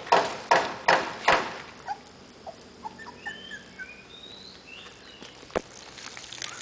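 Footsteps of a person in sandals crunching on gravel, about two and a half steps a second, stopping about a second and a half in. Faint short high chirps follow, with a single sharp knock near the end.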